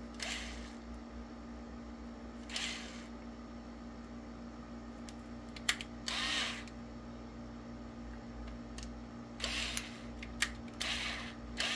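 Small plastic model-locomotive parts being handled and pressed together: several short scraping rubs and a few light clicks over a steady low hum.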